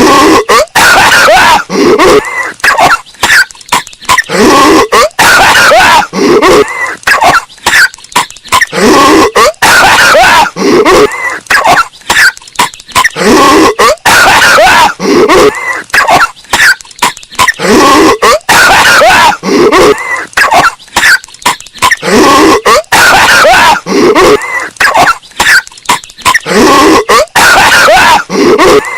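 Patrick Star's cartoon cough: one short clip looped over and over, about one cough a second, each falling in pitch. It is bass-boosted and very loud, pushed up against full scale.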